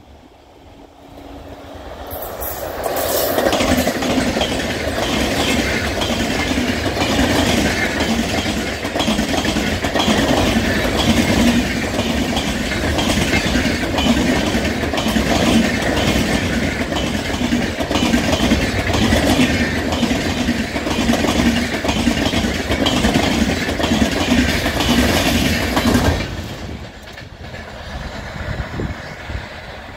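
LHB-coach express train hauled by a WAP-7 electric locomotive passing at speed close by, its wheels clattering rhythmically over the rail joints. The sound builds quickly about two seconds in, stays loud for over twenty seconds, then drops sharply near the end to a fainter rumble of the train moving away.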